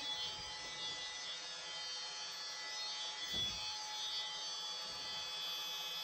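Electric angle grinder running against a fibreglass panel, fairly quiet and steady, with a single dull knock about three and a half seconds in.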